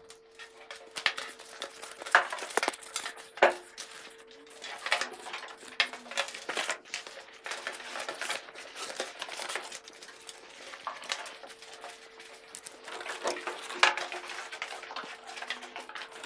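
Notebooks, cables and cardboard packaging being handled and packed into boxes: irregular rustling, clicks and light knocks, with a faint steady hum underneath.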